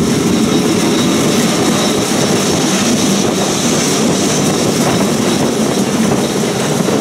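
Classic two-axle Lisbon electric tram running along its line, heard on board: a steady noise of wheels on the rails and the running gear.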